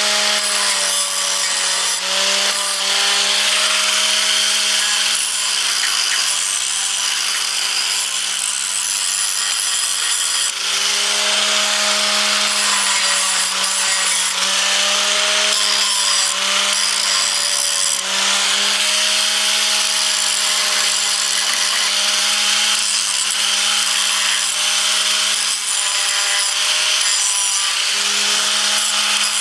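Electric angle grinder running steadily under load on metal: a motor whine with a broad grinding hiss. Its pitch sags and recovers several times as the wheel is pressed in.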